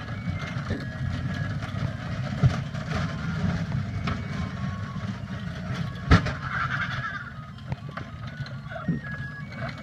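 Battery-powered kiddie ride-on cars and motorbike running on asphalt: a steady low hum with short electronic beeps here and there, and two sharp knocks, about two and a half and six seconds in.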